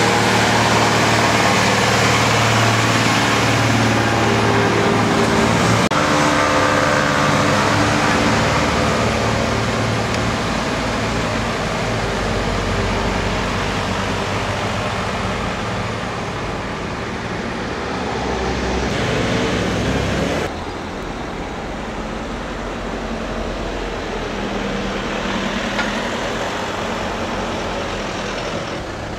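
Road traffic on a narrow street: a Mercedes-Benz lorry's diesel engine runs at low speed close by, with cars and scooters passing. The overall sound drops suddenly about twenty seconds in.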